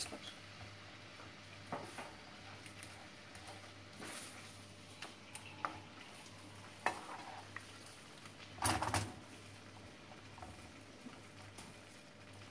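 Wooden spatula stirring peppers in a thickening milk sauce in a non-stick frying pan, with faint scrapes and light knocks against the pan, the loudest a short clatter about nine seconds in. A faint simmering sizzle runs underneath.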